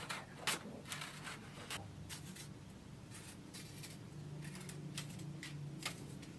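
Scissors snipping through a sheet of paper, about a dozen short, irregular snips while a paper circle is cut out along a drawn line. The sound is faint.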